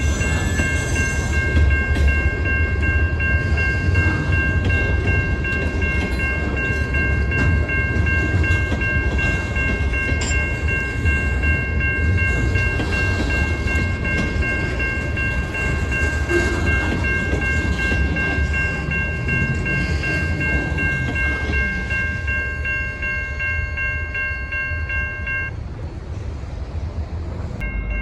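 A train running by with a steady heavy low rumble. Several steady high-pitched tones ring over it and stop about two and a half seconds before the end.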